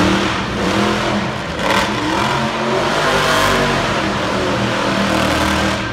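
Monster truck engine revving hard and running loud as the truck drives and turns on dirt.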